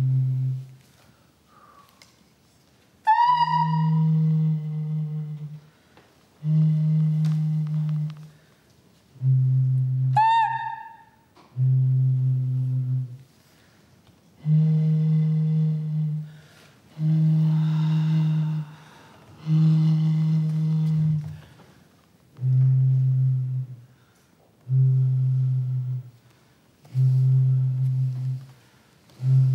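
Low, hollow hooting notes blown across the neck of gourds (Māori hue puruhau), held for a second or two each and repeated about every two and a half seconds, alternating between two close pitches. Twice, a short bright higher sound rings out over the start of a note.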